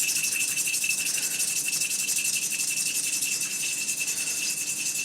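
A steel valve-adjustment shim being ground down: a steady abrasive hiss with a thin high whine over it, starting abruptly just before this.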